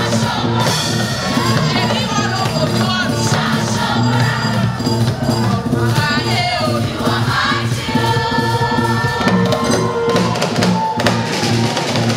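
Gospel choir of women's voices singing together over a live band with drum kit.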